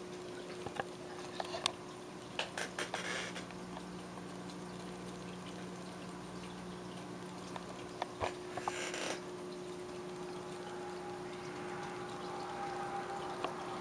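Aquarium filter running: water trickling over a steady low hum, with a few light clicks about two to three seconds in and again around eight to nine seconds.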